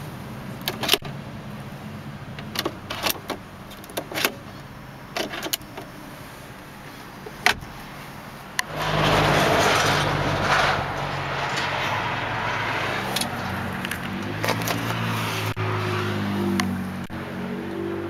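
Clicks and knocks from handling the car's glove box and interior trim over a steady low hum, then a loud rush of handling noise about nine seconds in as the camera is moved through the cabin.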